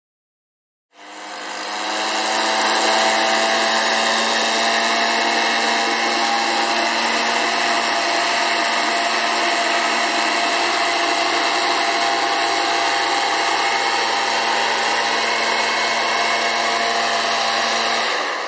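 Electric blower switched on about a second in, spinning up to a steady whine with a hum beneath it, running evenly, then switched off just before the end.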